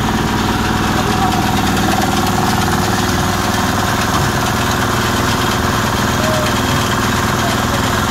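Mobile palm oil screw press running steadily under its engine while pressing loose palm fruit, a continuous mechanical drone with a fast, even engine rhythm.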